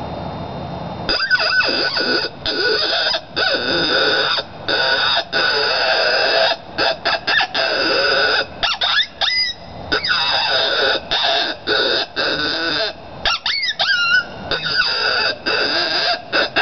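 NCK Special cow horn howler, a hand-blown coyote call, sounding a coyote fight: a rapid, choppy string of short barks and yelps, with a few quick high sliding yips near the middle and again about three-quarters through.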